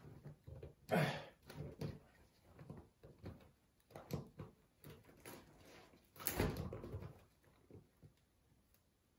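Umbrella being handled and forced: scattered clicks, knocks and rustles from its frame and canopy, the loudest a thud with a rustle about six seconds in. The stiff opening mechanism will not give way.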